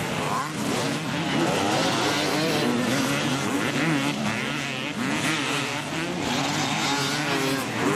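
Several motocross dirt-bike engines revving up and down at once, their pitches overlapping and wavering.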